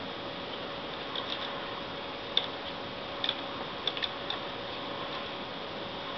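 Scattered light clicks of a small screwdriver and tiny screws being worked in a laptop's screen frame, over a steady background hum and hiss.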